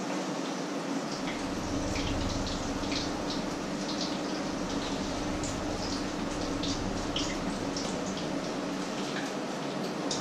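Food sizzling in a frying pan, a steady hiss with irregular crackles and pops. A steady low hum runs underneath.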